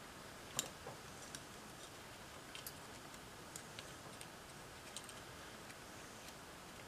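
Faint, irregular small clicks of a Schuco Examico tin toy car's clockwork motor being slid into place in its tin chassis, over low room hiss; the loudest click comes about half a second in.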